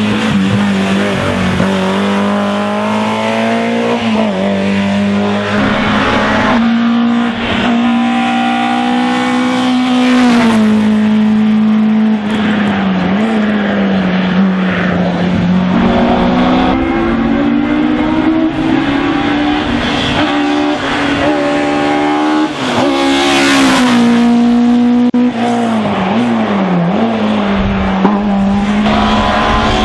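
Small racing touring cars, an NSU TT first, running hard up a hill-climb course one after another, engines held at high revs with brief dips in pitch at each gear change.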